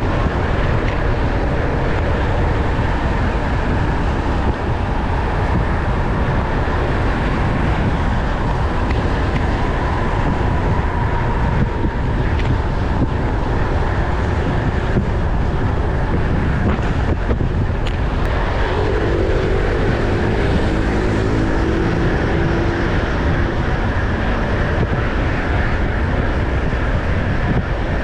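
Steady loud rumble of wind on the microphone while moving, with a faint humming tone that comes and goes about two-thirds of the way through.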